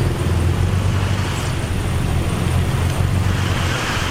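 Heavy diesel engine of earthmoving machinery running steadily, with a continuous low rumble.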